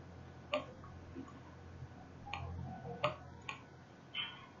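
Computer mouse clicking: a handful of short, sharp clicks at irregular intervals, with a faint low hum underneath.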